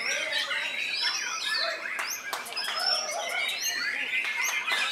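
White-rumped shama singing a fast, varied run of gliding whistles and trills mixed with sharp clicks, with other caged songbirds singing over it.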